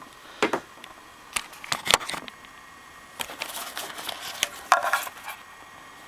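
Handling noise from a camera being put down on a desk: a scattered series of sharp knocks and clicks, with a short rustle near the end as the USB cable is handled.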